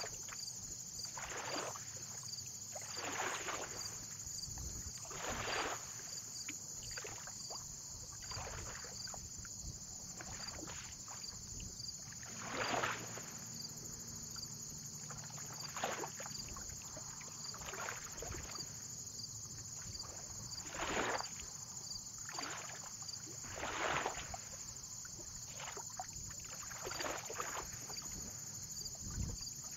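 Small waves lapping and splashing at the water's edge, one soft wash every one to three seconds, over a steady high-pitched hum.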